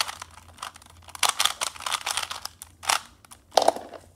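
Original Rubik's 3x3 cube being turned by hand: its plastic layers clicking and clacking in quick bursts, with a louder knock near the end as the solved cube is set down on a wooden floor.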